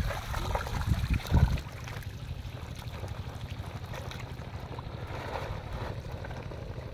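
Sloshing steps through shallow muddy water, a few louder splashes in the first second and a half, then quieter trickling water over a steady low hum.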